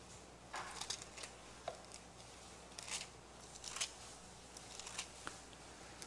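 Thin Bible pages being leafed through: several soft, faint paper rustles and swishes, a few seconds apart, as the book is searched for a passage.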